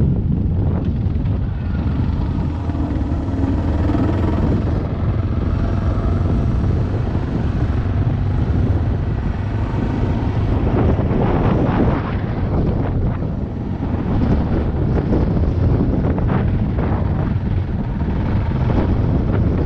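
Suzuki DR650's single-cylinder four-stroke engine running steadily while the motorcycle rides along, with wind on the microphone.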